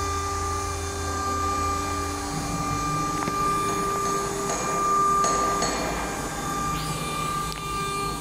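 Acctek AKM1530C1 ATC CNC router running: a steady high spindle whine over a low machine hum, the hum shifting in pitch about two seconds in.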